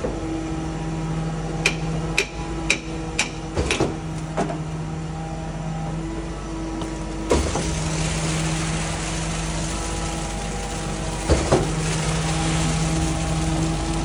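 Putzmeister concrete line pump running in reverse: a steady engine and hydraulic drone with a heavy clunk every few seconds as the pump strokes. A few quick sharp metal knocks come in the first few seconds as the hopper door is cracked. At about seven seconds a rushing wash starts as concrete pours out of the hopper onto the ground.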